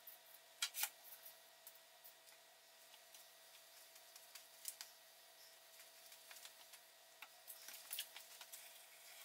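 Near silence with a faint steady hum and scattered light clicks and taps from handling long oak strips and a glue bottle on a wooden workbench. The clicks cluster about a second in and again around eight seconds in, as glue is run along a strip.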